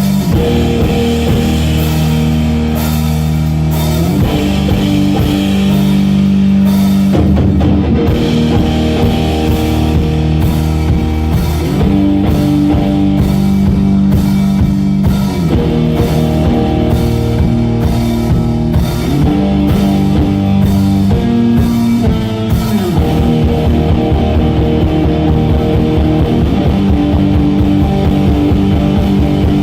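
Instrumental post-rock played live by a two-piece band: distorted electric guitar sustaining chords that change every few seconds, with a rock drum kit driving underneath.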